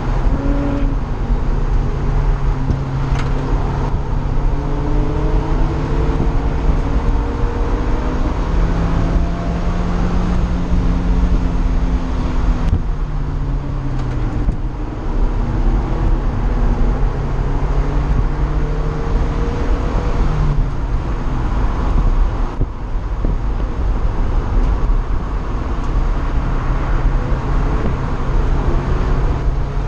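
In-car sound of a car being driven hard on a race track: the engine note rises and falls as it revs, under heavy wind and road noise in the open cockpit. It eases briefly twice, about halfway through and again a few seconds later.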